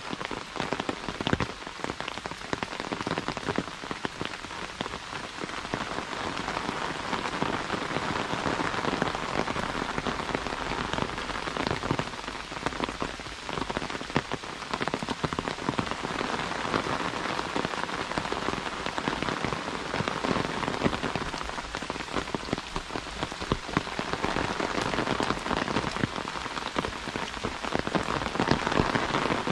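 Heavy rain falling steadily, with many close drops striking the umbrella held overhead.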